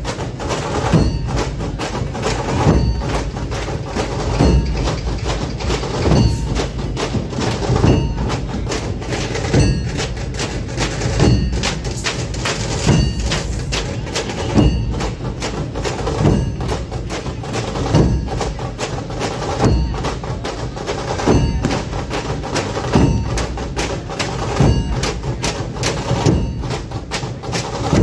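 Dhol-tasha drum troupe playing: many large barrel dhol drums hit in unison with a heavy accented beat about every 1.7 seconds, under rapid stick strokes.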